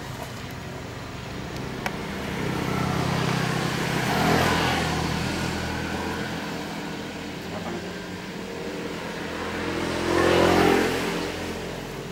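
Motor vehicles passing by, twice: each engine and tyre noise swells up and fades away, the first peaking about four seconds in and the second, louder one about ten seconds in.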